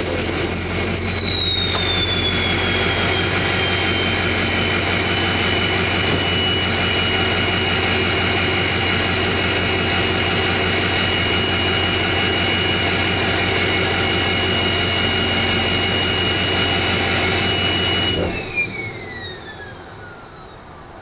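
Ford Power Stroke turbo-diesel idling with its turbocharger whistle clearly audible; the whistle is still falling in pitch as the turbo slows after a rev, then holds one steady high note. About 18 seconds in the engine shuts off, and the turbo whine keeps winding down, falling steadily in pitch as it spins to a stop.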